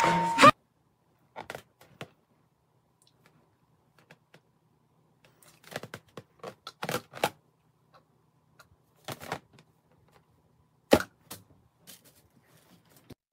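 Background music cuts off about half a second in. Then a rubber balloon is handled and rubbed between hands and face: scattered short rustles and clicks, with one sharp crack about eleven seconds in.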